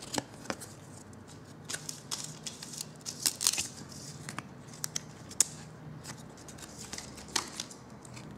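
Glossy hockey trading cards being slid off a stack one by one and peeled apart by hand: irregular light snaps and rustles, a few louder ones along the way.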